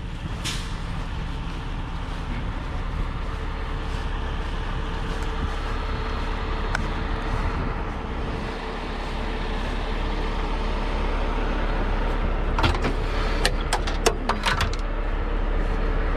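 Diesel engine of a heavy rotator tow truck running steadily at idle, with a few sharp metallic clicks or knocks near the end.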